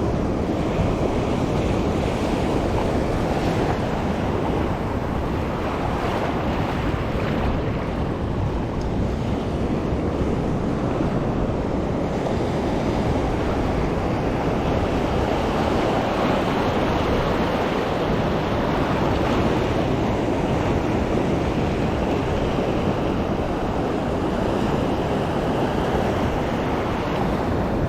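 Ocean surf washing against a rock jetty, with steady wind rushing over the microphone.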